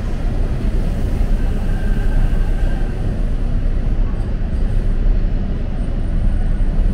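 Toronto subway car running between stations, heard from inside: a steady low rumble of wheels and running gear on the track, with a faint thin whine for a moment near the middle.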